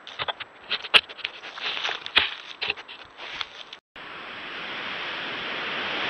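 Irregular scrapes and sharp clicks close to the microphone for about four seconds, two of them loud. Then, after a brief cut, a steady rush of storm wind over the microphone, building.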